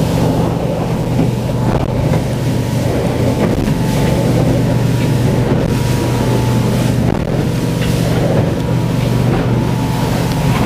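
Motorboat engines running fast under way, a steady drone that eases briefly about two-thirds of the way through, with wind buffeting the microphone and the rush of the wake behind it.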